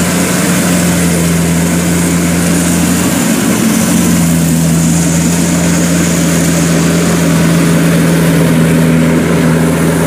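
Zoomlion FH100 Speedster rice combine harvester running while it cuts and threshes rice: a loud, steady machine drone.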